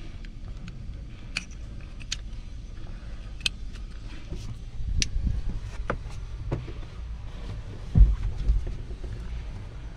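Scattered sharp clicks and knocks of a plastic wiring connector and harness being handled, with a heavy bump about eight seconds in, over a steady low rumble.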